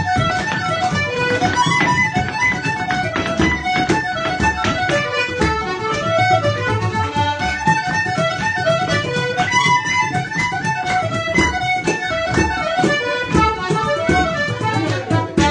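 Irish traditional dance tune played briskly on accordion and tin whistle, with dancers' feet beating on a wooden floor.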